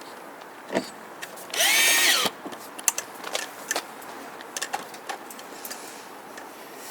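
Power drill driving a screw into the door panel: one short burst about a second and a half in, its motor pitch rising and then falling. Scattered light clicks and taps follow.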